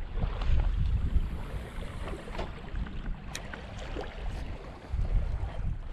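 Wind rumbling on the microphone in gusts, strongest near the start and again about five seconds in, over small waves lapping on a stony shore, with a few sharp clicks.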